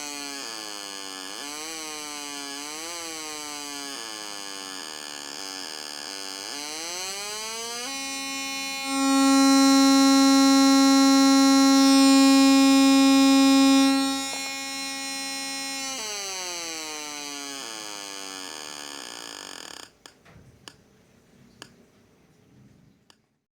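Homemade two-transistor (S9014/S9015) door-alarm circuit sounding through a small speaker: a buzzy electronic wail that wavers up and down, rises to a loud steady tone for about five seconds, slides back down and cuts off suddenly. A few clicks follow near the end.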